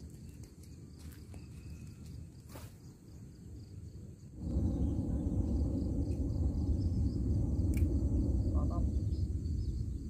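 Outdoor ambience with a steady high insect drone; about four seconds in, a low rumble of wind buffeting the microphone sets in and stays loud.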